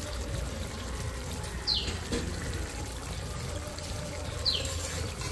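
A spoon stirring and breaking up egg curry in a kadai, with soft liquid sounds. A short, high, falling chirp sounds twice, about two seconds in and near the end.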